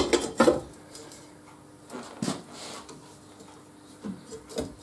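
Metallic clinks and knocks of a steel circular saw blade being handled and set down on the mount of a saw blade sharpening machine. A quick cluster of knocks comes at the start, with single clinks about two seconds in and near the end.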